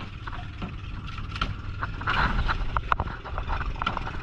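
Small outrigger fishing boat's engine running steadily under way, with water rushing past the hull. Sharp knocks and clatters on the boat as a freshly caught fish is handled over the side, busiest about halfway through.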